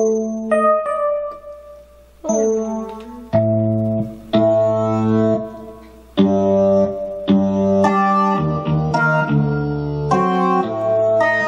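Yamaha PSR-EW410 portable keyboard played by hand, held notes and chords over low bass notes, with brief pauses about two and six seconds in.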